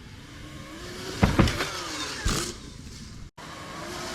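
Oset 24R electric dirt bike's motor whining and rising in pitch as it accelerates, with a few heavy thumps. The sound cuts off abruptly about three seconds in and the whine rises again.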